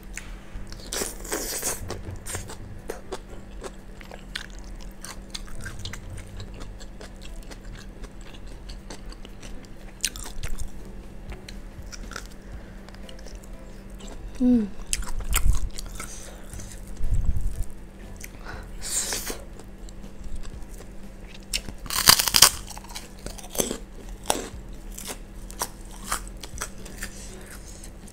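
Close-miked eating sounds: chewing with scattered crunchy bites, a few louder crunches near the start and twice in the second half, and fingers working food on a plate.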